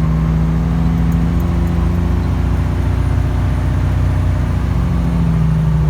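Diesel engine of a 1995 Kenworth T800 truck with its engine brake working on a long mountain descent: a steady, rapid low pulsing. The pitch sags a little through the middle and comes back up near the end.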